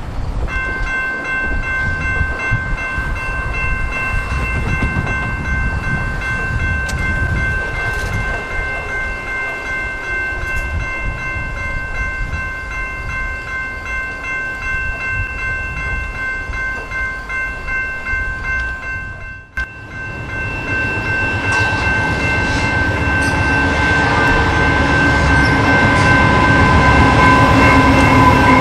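Level-crossing warning bell ringing on without a break while a VIA Rail train led by two GE P42DC diesel locomotives approaches. The locomotives' rumble builds steadily louder over the last third.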